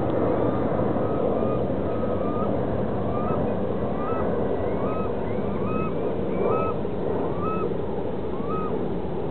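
A flock of waterbirds calling over and over, short calls that rise and then level off, several a second, over a steady low rush of wind and lapping water.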